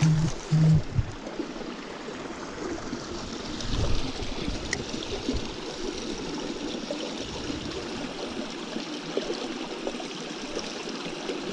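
Small stream running steadily over its bed, a continuous trickling rush of water. Two brief low knocks sound in the first second, and a low rumble comes around four seconds in.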